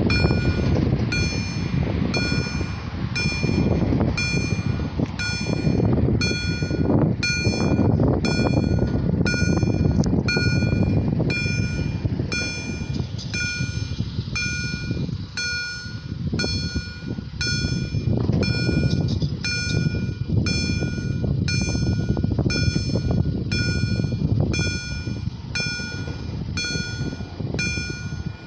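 Level crossing's electronic warning sounders (EHL-S10) ringing a steady, repeating bell-like ding, about three strikes every two seconds: the crossing is activated and its barriers are closing for an approaching train.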